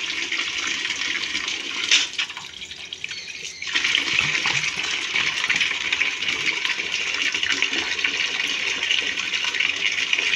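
Water running and splashing as a glass bottle is rinsed out. About two seconds in there is a sharp knock, then the water falls quieter for under two seconds before running steadily again.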